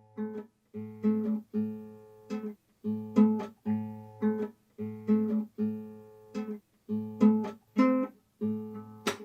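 Background music: an acoustic guitar strummed in a steady rhythm, about two chords a second, with a brief click near the end.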